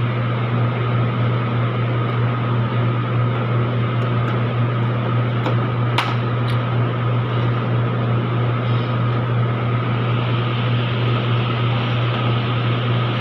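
Steady mechanical hum like a fan or blower running, with a strong low drone and a faint steady whine above it. A few light clicks fall on it, the clearest about six seconds in.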